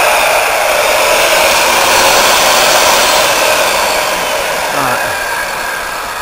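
Corded circular saw running free, its blade spinning without cutting: a loud, steady motor whine and blade noise, powered through an inverter from a battery. It gets a little quieter over the last second or so.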